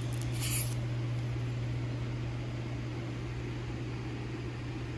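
2000-watt inverter running under heavy load, about 30 amps from two scooter battery packs in series: a steady low electrical hum with a fan-like whir. A brief hiss about half a second in.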